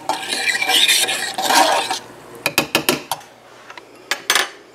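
A spoon stirring chai tea in a stainless steel saucepan, scraping and clattering against the pot for about two seconds. Then comes a quick run of sharp clicks, and two more near the end.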